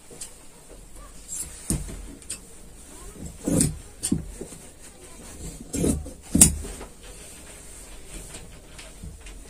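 Tailor's shears cutting into cloth on a cutting table: a scattering of sharp snips and dull knocks, the loudest a little after three and a half seconds in and again after six seconds.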